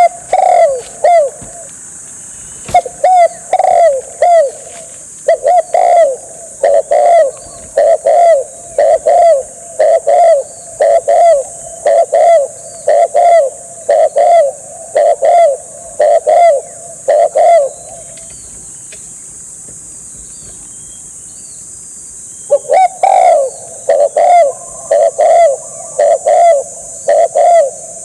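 Spotted dove cooing: a loud run of repeated coo notes, roughly two a second. The notes break off for about four seconds two-thirds of the way through, then start again.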